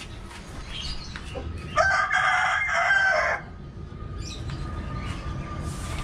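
A rooster crowing once, about two seconds in, a single call lasting about a second and a half.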